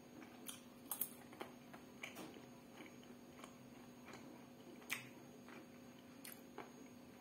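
Faint chewing and small wet mouth clicks, irregular and a second or so apart, from a man eating potatoes with stewed beef, over a low steady hum.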